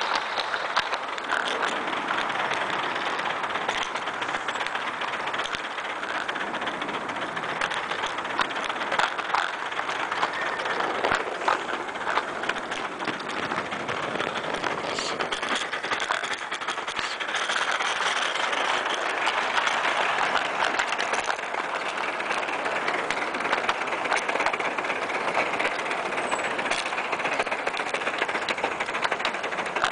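A 16mm-scale live-steam De Winton quarry locomotive running along its track. It makes a steady hissing noise, with scattered clicks and rattles from the wheels and wagon.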